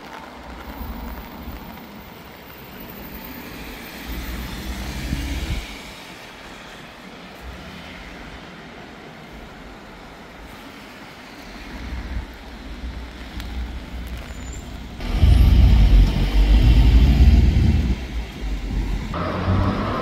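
City road traffic: motor vehicles passing on a wet street, swelling and fading several times, with a heavier low rumble for a few seconds near the end.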